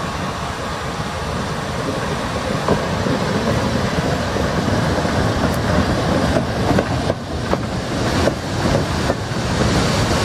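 Steam tramway train rolling past close by, its coaches' wheels running on the rails with a steady rumble. From about six seconds in, short clicks and knocks come as the wheels cross rail joints.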